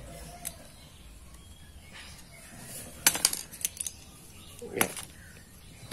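Metal tools clicking and clinking as a bearing puller is worked to draw the worn front ball bearing off an angle grinder's armature shaft. There is a quick run of sharp clicks about three seconds in and one more near the end.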